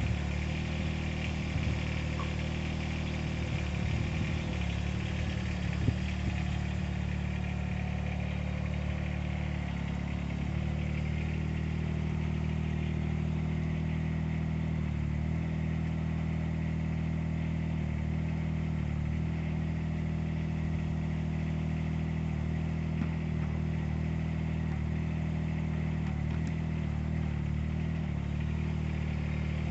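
Small Kubota diesel engine of a GroundHog KH20D mini excavator running steadily under hydraulic load while the machine tracks and moves its arm, with a few sharp knocks in the first several seconds.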